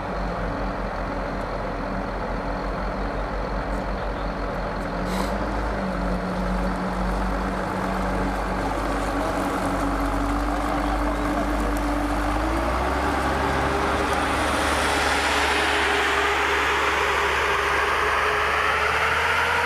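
Diesel engines of M1117 armored security vehicles running. About twelve seconds in, one engine's note steps up and keeps rising as the vehicle pulls away, with engine and tyre noise building over the last few seconds.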